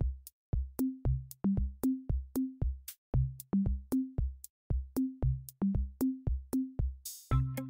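Background electronic music: a drum-machine beat of short, plucky bass notes, about two to three a second. Near the end a cymbal-like crash leads into a fuller section with more instruments.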